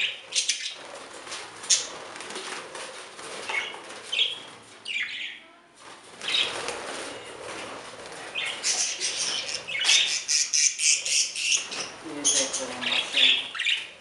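Budgerigars flapping their wings in a wire-mesh aviary, with chirps and squawks from the flock. In the second half the flutters come in a quick run.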